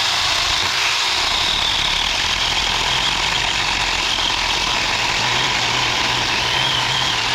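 Saker 4-inch battery-powered mini chainsaw running at full speed and cutting through a tree limb, a loud steady whir with the chain rasping through the wood.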